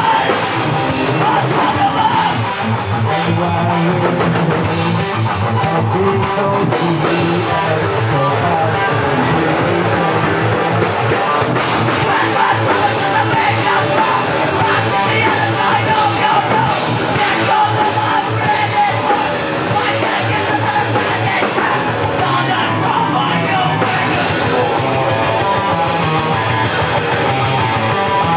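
Rock band playing a song live, with drum kit and guitar.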